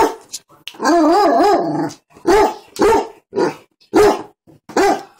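Basset hound barking to demand food: a long wavering, howl-like bay about a second in, then about five short barks roughly half a second apart.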